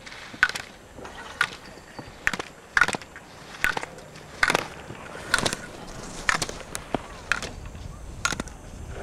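Slalom skier's edges scraping on hard snow at each turn through the gates: a short, sharp scrape about once a second, about ten in all.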